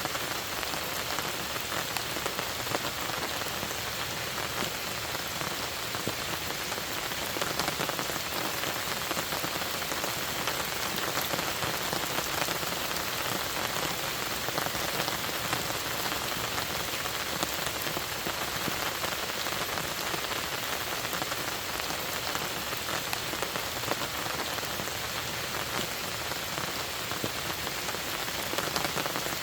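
Steady rain falling, a dense patter of many fine drops hitting the surface at an even level.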